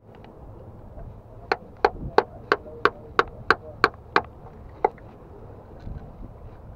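Pliers used as a hammer knocking a screwdriver to chip an oyster off the rock: nine sharp knocks at about three a second, then one more after a short pause.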